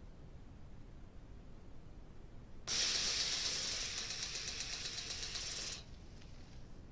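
Motion-activated sprinkler firing: a sudden hissing jet of water with a fast, regular ticking through it. It lasts about three seconds and cuts off sharply.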